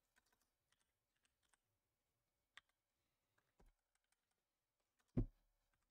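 Mostly near silence, with a few light scattered clicks and a soft knock about five seconds in, from trading cards and packs being handled on a table.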